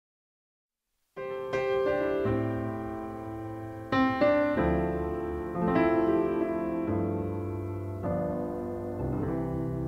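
Background piano music: slow chords struck every second or two and left to ring, starting about a second in after complete silence.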